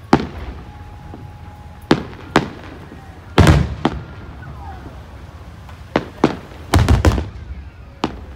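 Aerial firework shells bursting in a series of sharp bangs, about nine in all and irregularly spaced. The loudest comes about three and a half seconds in, with a quick cluster of bangs around seven seconds in.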